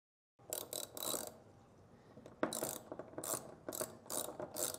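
9/16 deep socket ratchet wrench clicking as it tightens a threaded valve seat into a pilot housing: a few quick runs of ratchet clicks about half a second in, a short pause, then about five ratchet strokes roughly half a second apart.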